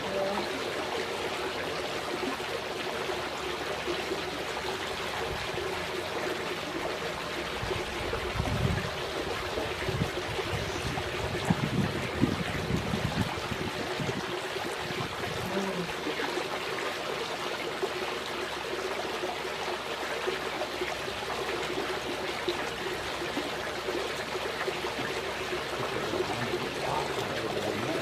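Steady trickle of running water, with a few brief low rumbles about a third of the way in.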